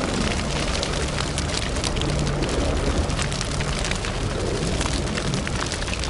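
Steady low rumble with dense, irregular crackling, no voice or music.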